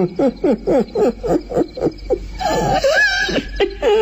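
A man's strange laugh: a run of short, falling 'ha' pulses at about four a second, with a longer, breathier stretch about halfway through.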